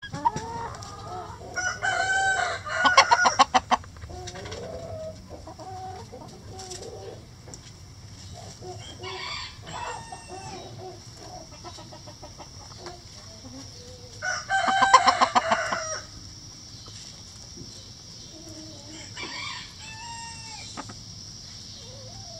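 Rooster crowing twice, a couple of seconds in and again past the midpoint, each crow lasting about two seconds, with hens clucking softly in between.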